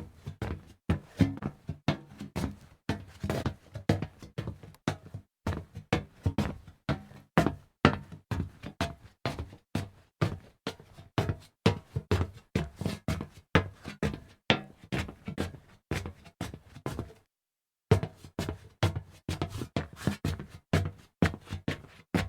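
Footsteps walking over a hollow metal surface, each step a sharp knock with a low resonant ring, at a steady walking pace. There is a brief break of silence about three-quarters of the way through.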